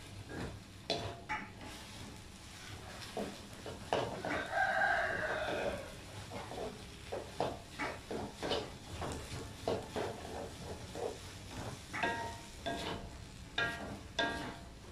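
Wooden spatula scraping and tapping against a wok as okra is stir-fried. A rooster crows in the background about four seconds in, one call lasting about two seconds, and it is the loudest sound.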